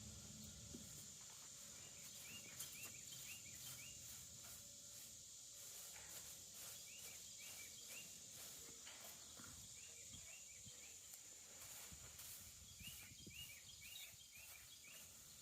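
Near silence: faint outdoor ambience with quiet chirps coming in short runs of four or five every few seconds, over a steady faint high-pitched hum.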